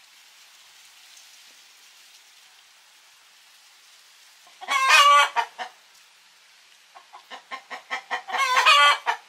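Domestic hen cackling. A loud squawk comes about halfway through, then a run of short clucks that quicken into another drawn-out squawk near the end.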